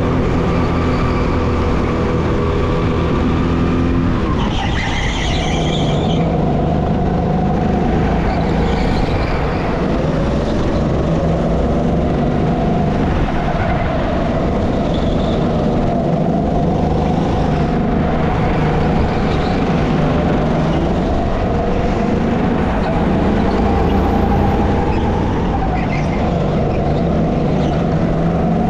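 SR5 200cc kart engine running hard, its pitch rising and falling. The revs drop sharply about four seconds in, then build again and hold.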